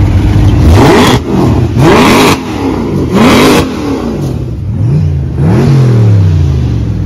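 Mercedes-Benz C-Class sedan engine free-revving in about five separate blips, each rising sharply and falling back. The first three blips are the loudest.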